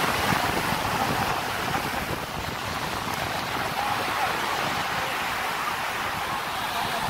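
Steady wash of sea surf breaking on a sandy beach, with wind on the microphone and faint voices in the background.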